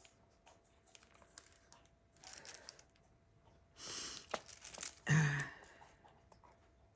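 Crinkling and rustling handling noises with small clicks, in short bursts, and a brief low voice-like sound about five seconds in.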